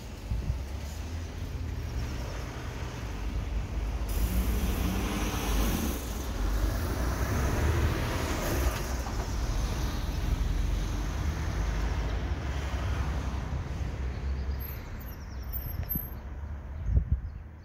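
Motor vehicle engine running with a low rumble, the noise swelling from about four to nine seconds in as it comes close and moves away.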